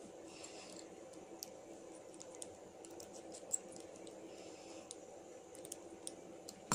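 Small scattered metal clicks and taps of a screwdriver and coil leads against the post screws of a rebuildable dripping atomizer deck as coils are seated, with one sharper click about halfway through.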